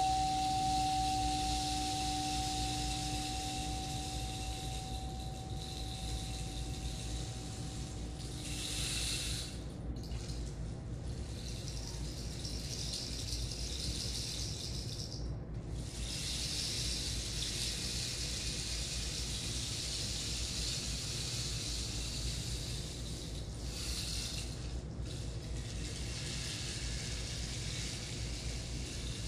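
A singing bowl, struck just before, rings on with a steady tone and fades out over the first eight seconds or so. Under it a steady hiss of running water goes on, dropping out briefly three times.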